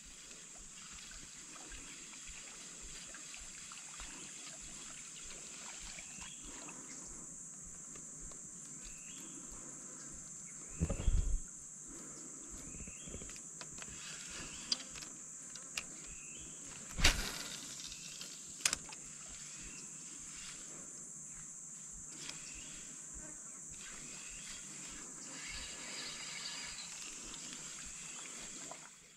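Steady high-pitched insect drone in swamp surroundings, broken by two dull thumps about eleven and seventeen seconds in and a few sharp clicks.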